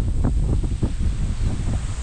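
Wind buffeting the action camera's microphone: a loud, continuous low rumble with irregular gusty flares.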